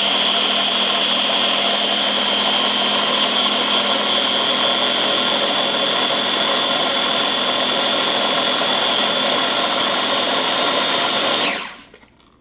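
Small electric food chopper running steadily, blending a batch of hummus, its motor giving a constant high whine. It winds down and stops near the end.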